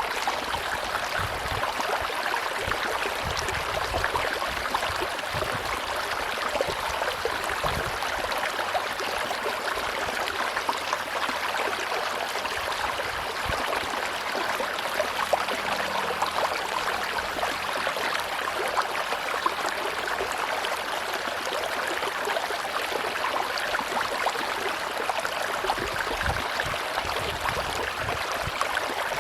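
River water flowing steadily, an even rushing and burbling that holds at one level throughout.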